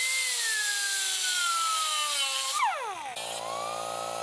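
An electric power tool cutting steel: its whine sags slowly in pitch under load over a loud hiss, then drops quickly as it is released and winds down. Near the end there is an abrupt switch to a steady machine hum with a wavering whine.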